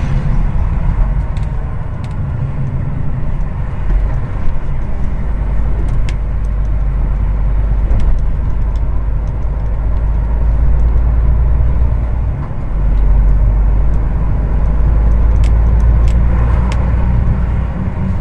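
Truck engine and road noise inside a moving truck's cab: a steady low drone that dips briefly about twelve seconds in, then picks up again.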